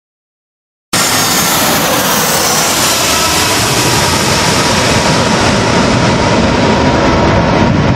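A jet airliner coming in to land: loud, steady jet engine noise that cuts in suddenly about a second in after dead silence, its high hiss slowly dulling.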